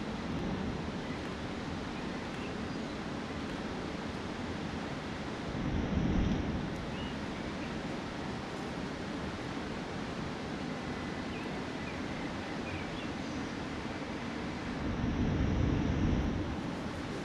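Steady wind buffeting the microphone, with two stronger gusts, one about six seconds in and a longer one near the end.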